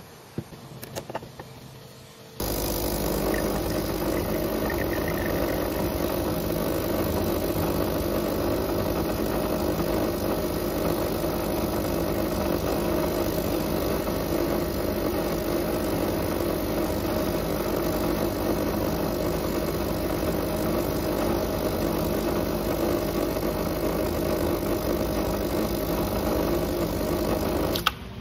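Espresso machine pump running steadily while pulling a shot, starting abruptly a couple of seconds in and cutting off just before the end. A few light clicks come before it starts.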